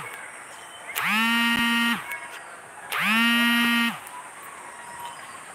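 A horn sounding twice in steady blasts of about a second each, the pitch sliding up as each blast starts and dropping as it stops.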